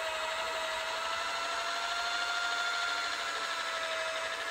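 Corded electric rotary polisher with a soft foam pad running against a painted boat hull, its motor giving a steady whine that rises and falls slightly in pitch as the pad is worked along the surface.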